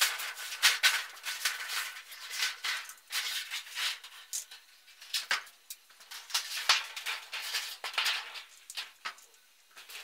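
Thin sheet-metal panel rattling and scraping as it is slid and flexed across a sheet-metal brake, in an irregular string of clatters and clicks.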